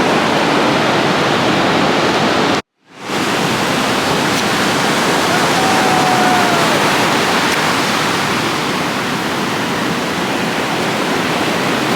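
Steady rushing of ocean surf at the beach. It breaks off abruptly for a moment a few seconds in, then goes on. A faint distant call sounds once about six seconds in.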